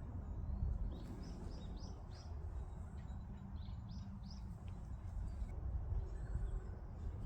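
Small bird chirping: two short runs of quick, high chirps over a steady low rumble of outdoor background noise.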